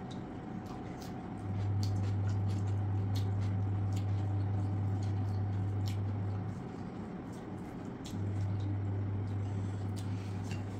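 Eating with the hands: wet, squishy mixing and chewing of rice and curry, with small scattered clicks of fingers against steel plates. A loud low hum runs underneath and cuts out twice before coming back.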